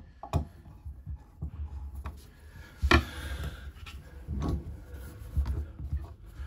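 Clicks, knocks and rubbing from hand work with a screwdriver on a shower-tray waste trap, as the trap's screws are being started. There is one sharp click about three seconds in.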